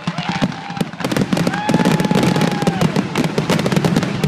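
Fireworks finale: a rapid, dense volley of shell bursts and crackling, the reports following one another with no break.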